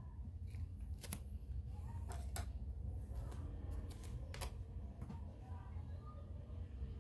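Hands handling small objects: a few sharp clicks and taps, one about a second in, two close together around two seconds, and one a little past four seconds, over a steady low rumble.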